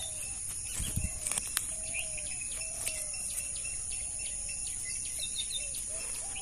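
Outdoor ambience: a steady high insect drone with short, repeated bird chirps, and a few soft knocks about a second in.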